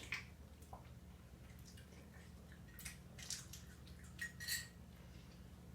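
A few faint clinks and taps of a spoon against a soup bowl.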